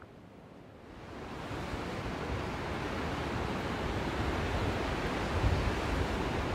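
Sea surf breaking and washing over rocks at the foot of a cliff: a steady rushing that swells in about a second in.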